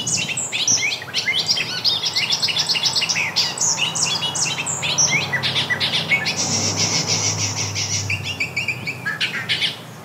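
Bobolink song: a long, rapid run of quick high notes gliding up and down, with no break. A low steady hum lies underneath.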